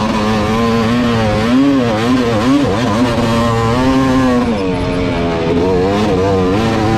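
Race ATV engine running hard, its pitch rising and falling again and again as the throttle is worked on and off over rough dirt track.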